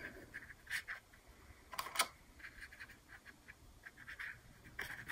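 Faint, intermittent scratching of a watercolor paintbrush on paper, with a light click about two seconds in and another near the end.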